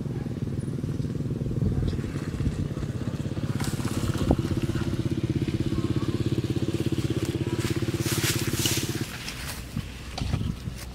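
A small engine running steadily at a fast, even beat, which cuts off about nine seconds in. Irregular noises lie over it in the middle stretch.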